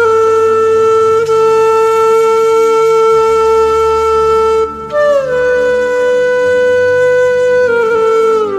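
Background music: a flute playing long held notes over a low drone. One note is held for over four seconds, then after a short break a higher note slides down and steps lower near the end.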